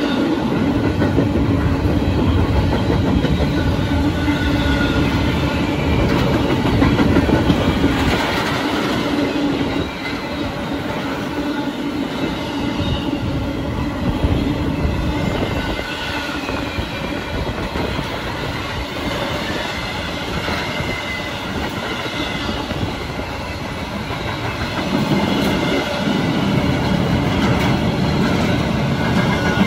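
Empty intermodal double-stack well cars of a freight train rolling past close below, a steady rumble and clatter of wheels on rail with thin high squealing tones from the wheels. It eases off about a third of the way in and grows louder again near the end.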